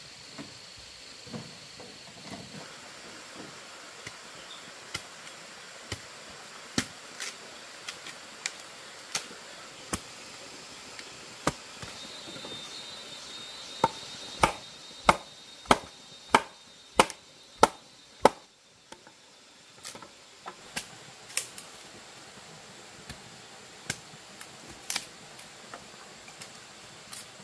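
Chopping with a blade: scattered sharp knocks, then a steady run of about seven heavy chops, a little under two a second, around the middle, then scattered knocks again.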